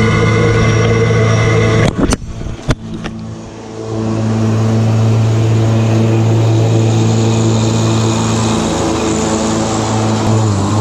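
John Deere 1023E sub-compact tractor's three-cylinder diesel engine running at a steady speed. About two seconds in, a few sharp knocks as the camera is struck off by a tree limb and falls into the grass; the engine sounds fainter for a moment, then steady again from about four seconds in.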